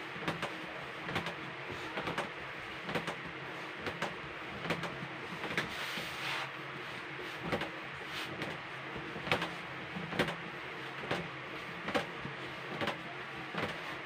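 Marshmallow fondant being kneaded by hand on a worktop: soft, irregular knocks and thumps about one or two a second as the dough is pressed and pushed against the table, over a steady background hiss.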